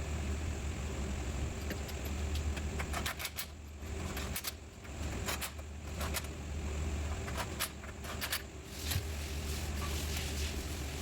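A car engine idling steadily, with several sharp metallic clicks and clinks in clusters partway through.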